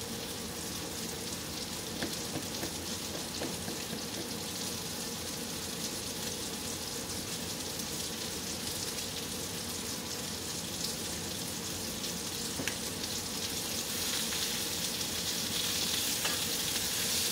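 Sausage links frying in a pan in their own grease: a steady sizzle with a few faint pops, growing a little louder over the last few seconds.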